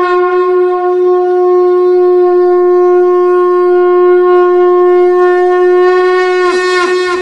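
A conch shell (shankh) blown in one long, loud, steady note. Near the end it wavers and dips twice in pitch.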